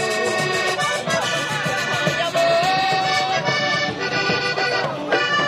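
Accordion-led Panamanian música típica playing, with held accordion notes over the band.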